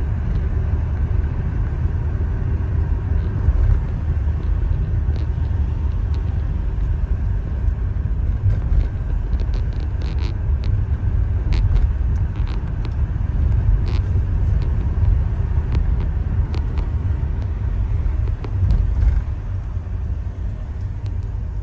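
Road and engine noise inside a moving car's cabin: a steady low rumble, with occasional faint clicks, that quietens a little near the end.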